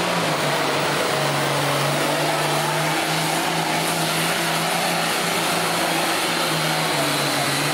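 Diesel engine of a red International pulling tractor at full throttle, hauling a weight-transfer sled under heavy load. A loud, steady drone whose pitch dips slightly and recovers a few times.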